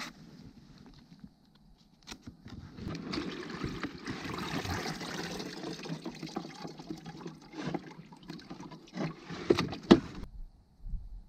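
A hand splashing and rummaging in the water of a live-bait bucket to catch a small baitfish, with a few sharper splashes near the end before it stops abruptly.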